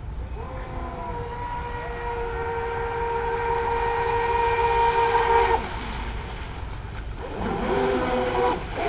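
Twin electric motors of an RC catamaran speedboat whining at a steady high pitch, cutting out about five and a half seconds in. From about seven seconds the whine returns and rises and falls repeatedly with the throttle.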